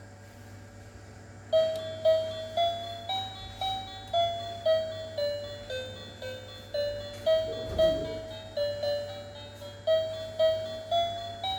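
Electronic tune from a toy steering wheel: a simple melody of single beeping notes, about two a second, starting about a second and a half in.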